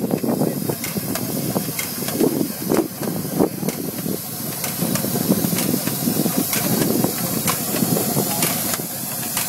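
Single-row vegetable transplanter with plug selector running as it plants. It makes a steady hiss with irregular sharp clicks from its mechanism.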